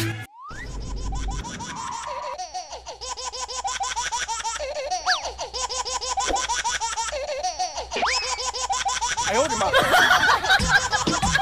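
Laughter, a long run of quick repeated laughs, over background music, with a few quick rising pitch glides.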